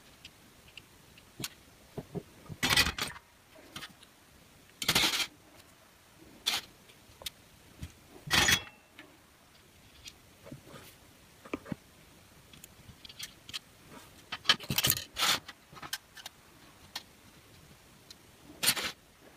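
Irregular clicks, taps and short scraping rattles of a soldering iron and small parts being handled on a workbench.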